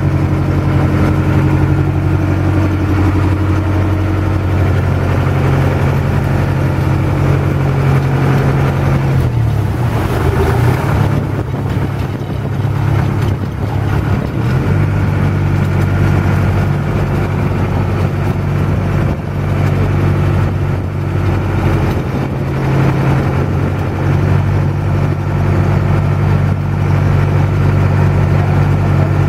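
Small passenger boat's engine running steadily with a low hum, over water rushing along the hull; the hum wavers for a few seconds about ten seconds in.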